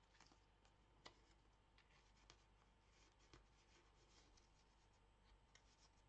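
Faint rustling of paper and cardstock being handled, with a few light scattered taps and clicks as tags are moved about and tucked into a paper folio's pockets.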